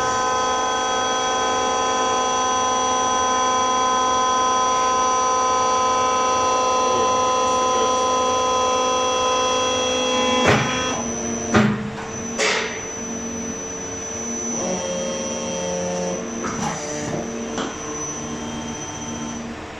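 Servo hydraulic forging press running with a steady hum made of several held tones, then three sharp metallic clanks about ten to twelve seconds in, after which a lower hum pulses on and off in a regular rhythm.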